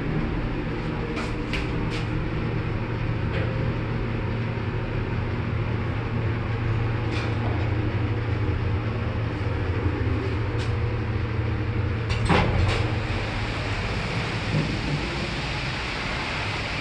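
Ride noise inside a 1977 Fujitec lift car in motion: a steady low hum with a hiss and a few clicks. About twelve seconds in, a clunk as the car stops, and the hum dies away after it.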